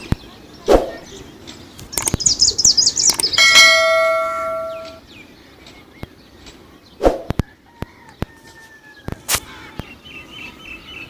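Bird chirps in a quick high series, then a single bell-like ring that dies away over about a second and a half, with scattered sharp clicks around it.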